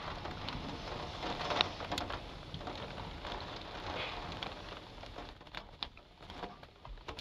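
Rain falling, a steady patter with scattered drops ticking, growing quieter in the second half.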